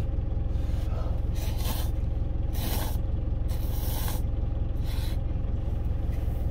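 A person slurping instant cup-ramen noodles in four quick pulls, between about one and a half and five seconds in, over the steady low hum of an idling truck engine.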